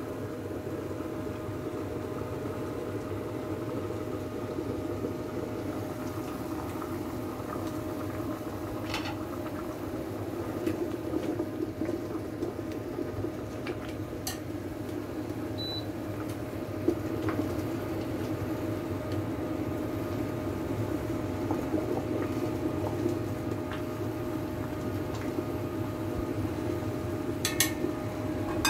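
Pot of ready-made Taiwanese curry sauce simmering on a low flame: a steady bubbling hiss over a constant hum. A few light clicks break in, with a short run of them near the end.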